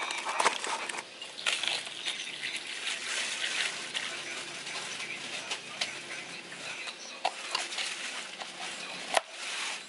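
Coffee poured over crushed ice in a plastic cup, with ice crackling and clicking all through. A plastic dome lid is pressed onto the cup with one sharp snap near the end.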